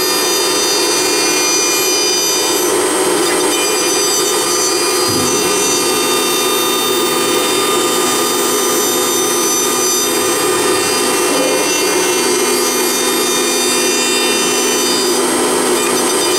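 Blue Elephant 2030 ATC CNC router spindle carving a wooden column on its rotary axis: a steady high whine with the rasp of the cutter in the wood. A lower tone joins about five seconds in.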